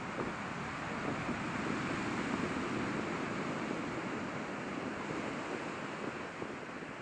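Rough, stormy sea: surf breaking and rushing onto the shore, swelling about two to three seconds in and then easing, with wind in the background.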